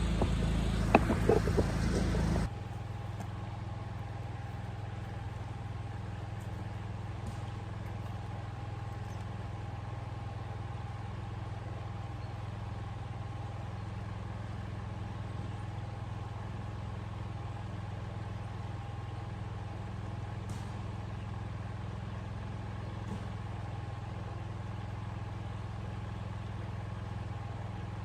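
About two seconds of loud rustling noise that cuts off abruptly, followed by a steady, unchanging low hum with a faint held tone above it.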